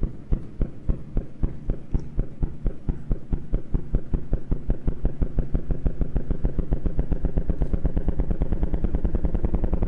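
Computer-simulated gravitational-wave sound of a light black hole falling into a very heavy black hole: a series of drum-like bangs, one each time the small black hole swings close, coming faster and louder as it falls in, until they run together into a rapid rattle near the end.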